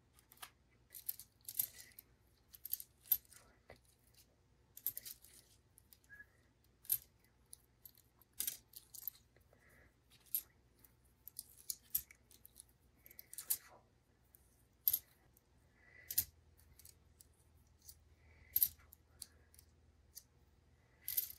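Pennies set one at a time into a floating tinfoil boat. Each lands with a sharp click against the foil and the pennies already there, irregularly, about one a second.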